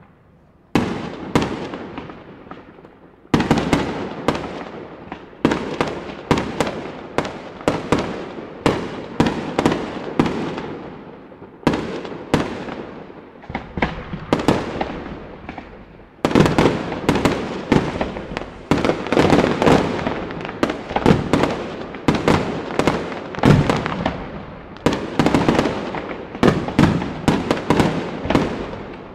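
Aerial fireworks display: rapid volleys of shell bursts, dozens of sharp bangs in close succession, each trailing off in echo. A fresh volley sets off suddenly several times, and the densest, loudest barrage comes in the second half.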